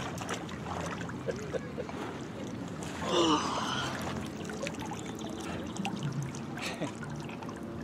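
Water splashing and trickling as a large fish is scooped up and lifted out of shallow water, with scattered small splashes and drips. A brief voice sound breaks in about three seconds in.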